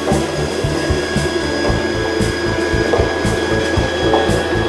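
Play-area ball-lift machine running after its button is pushed, a steady mechanical whirring and ratcheting as it carries play balls up.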